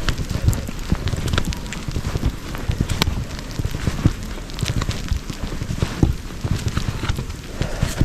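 Wind buffeting the microphone in a low, pulsing rumble, with sleet pellets ticking irregularly throughout.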